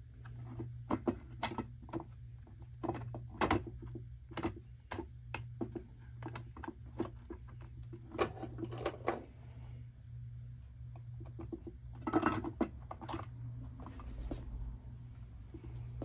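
Irregular clicks, taps and light knocks of small hard plastic parts being handled during disassembly of a Uconnect radio unit, some in quick clusters, over a steady low hum.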